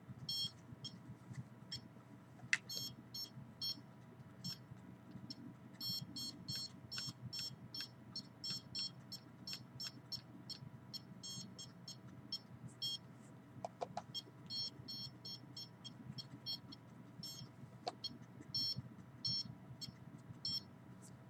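Handheld RF signal detector giving short, high-pitched beeps in irregular rapid runs, its alert that it is picking up radio-frequency signal.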